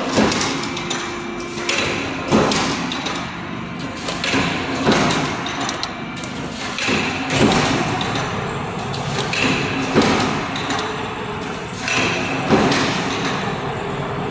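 Steel angle post roll forming machine running, a punched steel strip feeding through its forming rollers: a steady machine noise with a heavy knock about every two and a half seconds.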